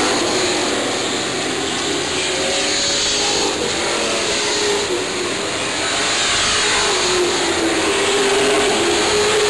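A field of Sportsman stock cars racing under green. Several engines run hard together, their pitch rising and falling as the cars go through the turns and straights.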